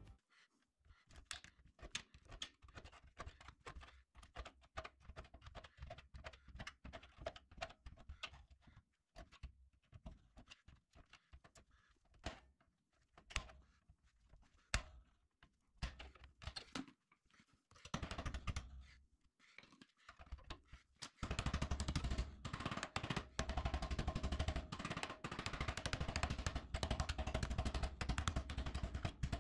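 Small hammer tapping the cut tabs of a galvanized steel duct collar in a wall opening: scattered single taps at first, then fast, steady tapping for the last eight seconds or so.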